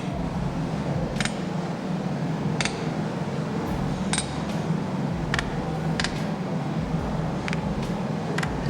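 Light metal-on-metal clinks, one every second or so, each ringing briefly, over a steady low rumble.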